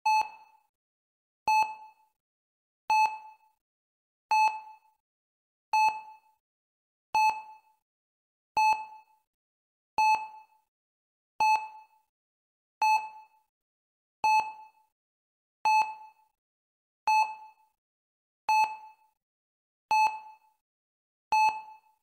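Heart rate monitor beeping steadily: one short mid-pitched tone with a quickly fading tail about every one and a half seconds, each beep marking a heartbeat of a steady pulse.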